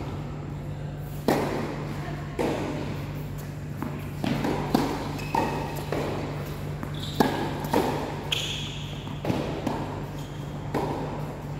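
Tennis rally: racquets striking the ball and the ball bouncing on the court, a string of sharp pocks about a second apart, over a steady low hum.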